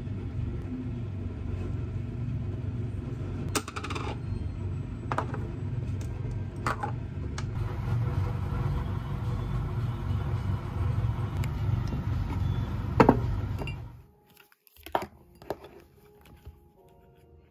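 Utensils and ceramic dishes clinking a few times over a steady low kitchen hum as food is served from a frying pan and the bowls are set out. The loudest clink comes near the end, and then the hum stops abruptly.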